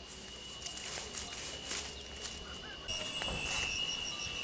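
Insects trilling on one steady high note, with a few soft knocks in the first two seconds. About three seconds in, the trill suddenly gets louder and short chirps repeating at an even pace start up above it.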